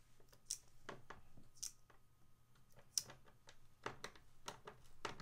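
Phillips screwdriver turning a screw by hand through a plastic skateboard rail into the wooden deck: faint, irregular clicks and short scrapes.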